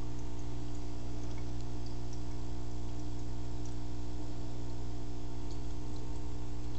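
Aquarium pump humming steadily, with faint scattered ticks of water and bubbles over it.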